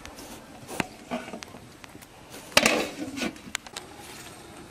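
Dry firewood and palm leaves rustling and cracking as they are handled to feed a cooking fire. There are scattered sharp clicks and one loud knock about two and a half seconds in.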